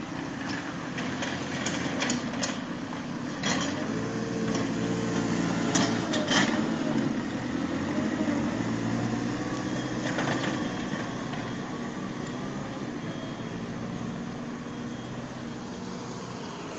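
JCB loader's diesel engine running under load as its front bucket pushes and spreads gravel along the road edge, with a few sharp clanks and scrapes about 3.5, 6 and 10 seconds in. The engine sound eases off near the end.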